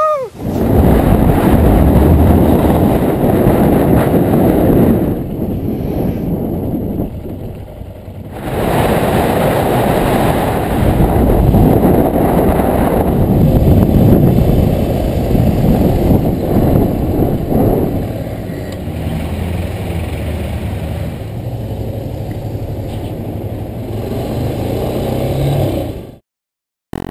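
A short shout at the very start, then wind rushing over the microphone and a Yamaha XTZ 250's single-cylinder engine running while the motorcycle is ridden on the road. The sound drops out briefly near the end.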